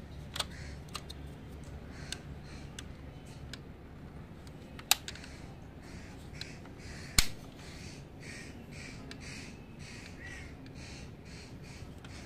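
Small sharp clicks from a diecast model car being handled, its opening doors and parts snapping, with two louder snaps about five and seven seconds in.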